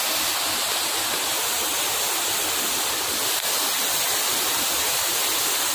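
Steady rush of running water in heavy rain, an even hiss with no change in level.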